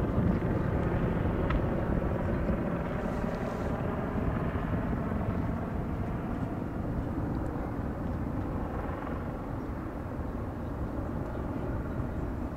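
Bell 430 twin-turbine helicopter flying away, its rotor and engine noise fading steadily with distance.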